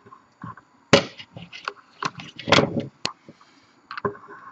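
A 3D-printed plastic part knocking and clacking against its perforated print-bed plate and a wooden board as it is handled and worked loose, with its supports being taken off. The sharp knocks come irregularly, the loudest about a second in.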